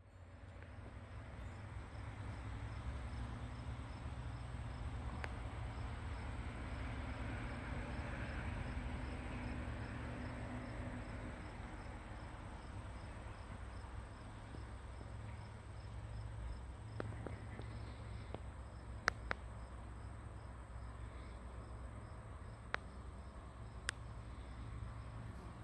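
Insects chirping: a steady high-pitched trill with a regular pulsing chirp, over a low steady rumble. A few sharp clicks come in the second half, the loudest a pair about two-thirds of the way in.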